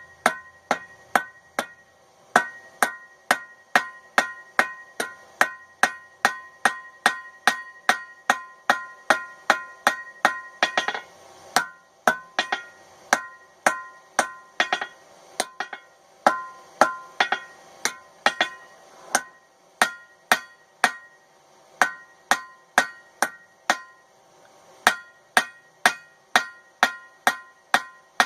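Hand hammer striking a railroad spike on a steel anvil in a steady rhythm of about two blows a second, each ringing out, with a few short pauses. This is hand forging of the spike into a knife blade.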